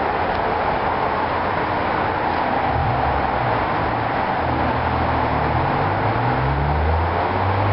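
Steady road traffic noise, with a low engine rumble from a nearby vehicle coming in about three seconds in and continuing.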